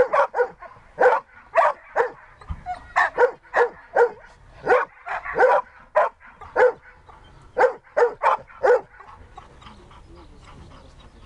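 Siberian husky barking repeatedly, roughly two barks a second at an uneven pace. The barking stops about nine seconds in.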